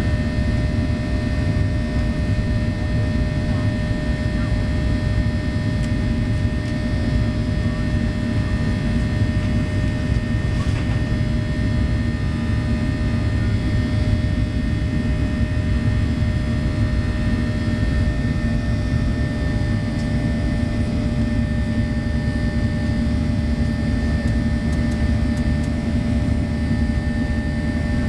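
Steady cabin noise of a Boeing 737-800 in flight: a continuous low rush of jet engines and airflow, with a few faint steady whining tones above it.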